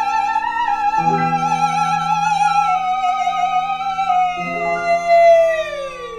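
Chamber-opera music: a long, high, wavering note, the tale's 'murdering screech', holds and then slides down in pitch near the end, over lower piano and ensemble chords that sound afresh about a second in and again after about four seconds.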